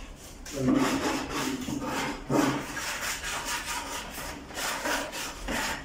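Repeated rubbing and scraping strokes of an abrasive mesh worked over a plaster-of-Paris (POP) moulding, cleaning off small bits of excess plaster.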